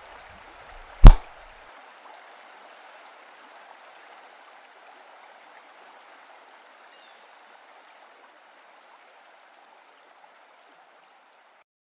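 Bighorn sheep rams clashing horns in a single head-butt: one loud, sharp crack about a second in. A steady rushing background noise runs under it and cuts off abruptly near the end.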